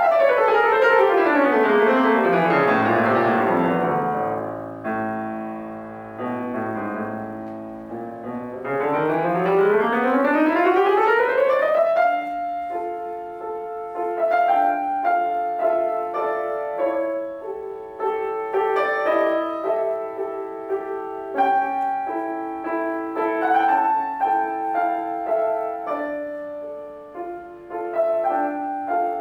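Solo acoustic piano playing classical music: a fast run sweeping down the keyboard, a few chords, and a fast run sweeping back up, then a slower passage of held melody notes over chords.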